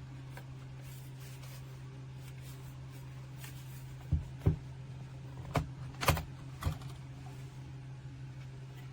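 Five sharp knocks or clicks, spread over a few seconds in the middle, over a steady low hum.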